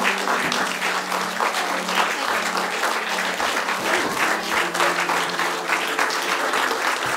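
Audience clapping steadily, with held musical notes playing quietly underneath.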